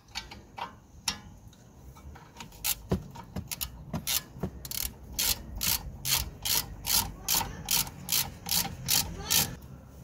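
Ratchet wrench clicking as a brake caliper bolt is worked while a spanner holds the guide pin: a few scattered clicks at first, then from about halfway a steady back-and-forth rhythm of about three strokes a second.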